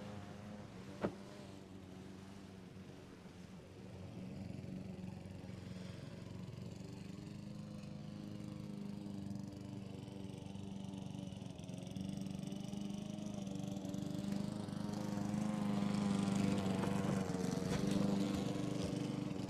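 A steady low hum with overtones that swells louder in the second half and cuts off suddenly at the end. A single sharp click comes about a second in.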